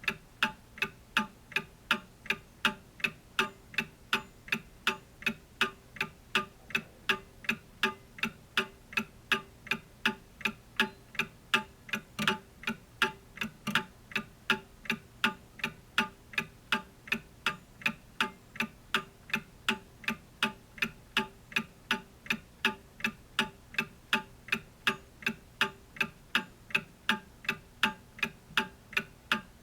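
Clock ticking steadily, with sharp, evenly spaced ticks.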